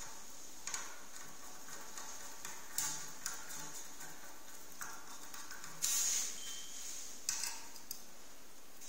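Hand screwdriver turning a screw into a hard disk's metal mounting bracket: small metallic clicks and scrapes every second or two, with a longer, louder scrape about six seconds in, over a steady hiss.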